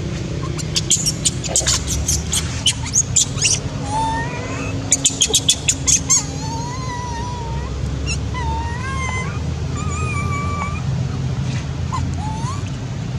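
Young long-tailed macaque crying in distress: two runs of rapid, shrill shrieks in the first six seconds, then softer, wavering whimpering cries. The hungry crying of an infant being weaned and denied milk.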